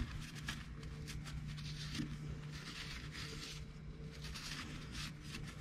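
Cloth rag wiping and rubbing over the metal clutch assembly and engine case in a run of short scuffing strokes, over a steady low hum.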